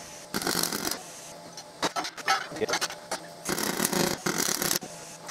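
MIG welding arc struck in a series of short runs, a crackling hiss that starts and stops four or five times, each run lasting from about half a second to just over a second.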